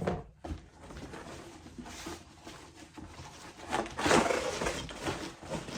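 Hands digging through a shipping box full of polystyrene packing peanuts: irregular rustling and crunching of the peanuts and cardboard, with a couple of knocks near the start and a louder swell of rustling about four seconds in.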